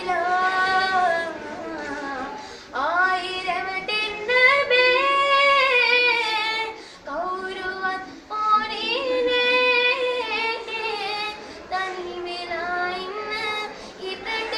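A high-pitched voice singing a melody alone, in phrases of long held notes that slide up and down in pitch, with short breaks between phrases.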